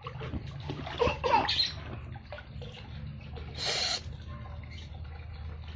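Water splashing in a small inflatable kiddie pool, with a brief louder splash a little before four seconds in. A short high-pitched cry about a second in.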